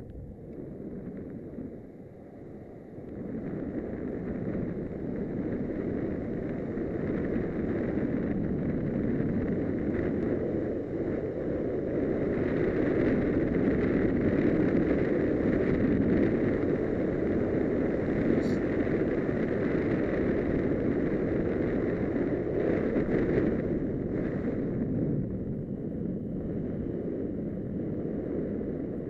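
Longboard wheels rolling on asphalt with wind rushing over the microphone, a steady roar that builds as the board gathers speed about three seconds in and eases off near the end.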